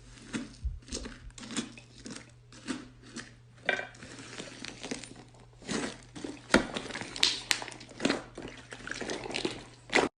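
Hands squeezing and poking slime, making an irregular run of short sticky clicks and pops, several a second and busier in the second half. It stops abruptly near the end.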